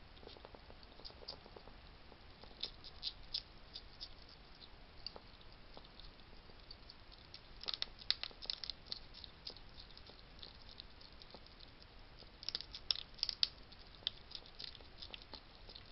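Wild hedgehogs at a feeding station making quick runs of sharp clicks and crackles as they eat and scrabble. The runs come in three bunches, about three, eight and thirteen seconds in.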